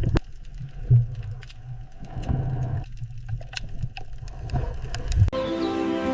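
Seal giving low grunts, with scattered sharp clicks. About five seconds in, music with held tones takes over.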